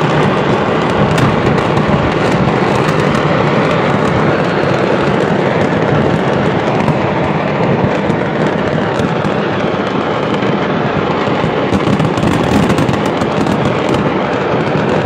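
A large stock of fireworks going off at once: a dense, unbroken crackle of pops and bangs with a steady rumble underneath. Sharper cracks come thickest about a second in and again about twelve seconds in.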